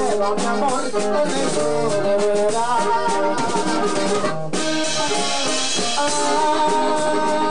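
Norteño band playing an instrumental break: a button accordion carries the melody over a drum kit and strummed strings, with no singing.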